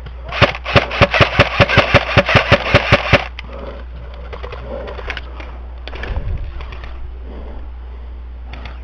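Airsoft rifle firing a quick string of shots, about six a second for roughly three seconds, each a sharp crack. A few fainter pops follow.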